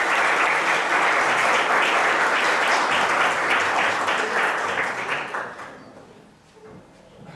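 Audience applauding steadily, then dying away after about five seconds.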